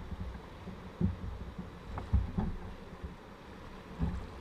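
Canoe running down a shallow river rapid: a low rumble of rushing water with a few muffled low thumps, about one, two and four seconds in, as water knocks against the hull.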